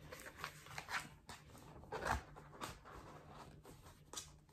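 Faint rustling and soft knocks of notebooks and their covers being handled and pushed into a planner cover, with one louder knock about two seconds in.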